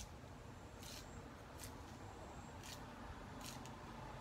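Leaves being picked by hand off fresh leafy stems: a few short, crisp snaps and rustles, roughly one a second, over faint steady background noise.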